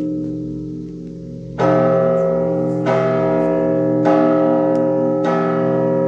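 Russian Orthodox monastery bells ringing. The ring fades for the first second and a half, then a cluster of bells is struck about four times at even spacing, roughly every second and a quarter, each stroke ringing on over the lingering hum of the earlier ones.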